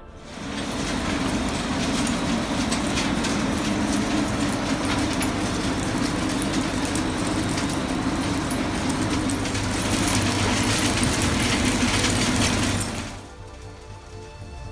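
Waste air density separator running: a steady blower noise with a dense rattle of small hard pieces of waste clattering through the machine. It starts about half a second in and stops abruptly near the end, leaving only background music.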